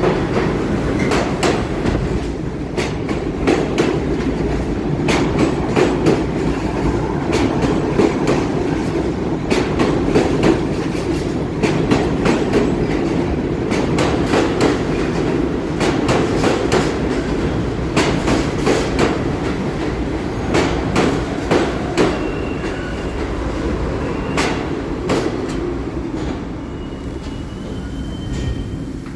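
R62A New York City subway train pulling into the station: a loud rumble with wheels clacking over rail joints, easing off as it slows to a stop near the end, with a few brief high-pitched squeals.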